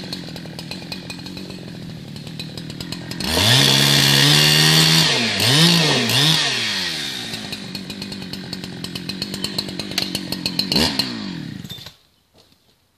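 Chainsaw engine idling with a fast ticking beat, revved hard about three seconds in while limbing a felled blue gum, its pitch dipping twice under the cut, then dropping back to idle. After a short rev it is switched off about a second before the end.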